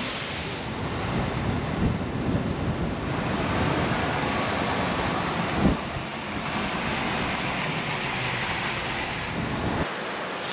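Wind buffeting the camera microphone over the steady wash of ocean surf, with one sharp gust thump about halfway through; the low rumble drops away suddenly near the end.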